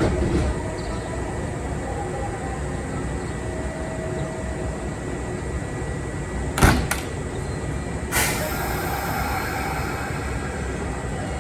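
Kintetsu electric train at a station with a steady running hum. Two sharp knocks come in quick succession about two-thirds of the way through, and a moment later another knock is followed by a hiss of air.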